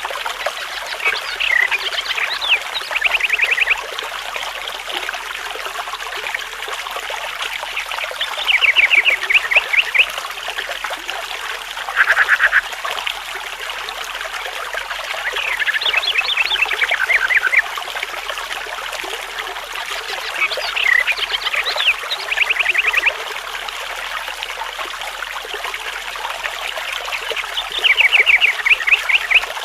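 Stream trickling steadily, with a small bird repeating a short high song about every six seconds: a few quick sweeping notes that end in a rapid trill.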